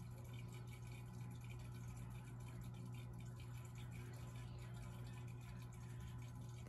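Aquarium filter pump humming steadily at a low pitch, with faint trickling of water.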